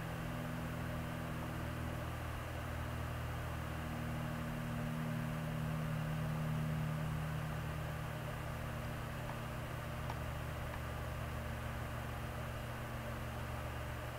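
Steady low hum with several fixed tones and a faint hiss: background noise of the recording setup, with a faint click about ten seconds in.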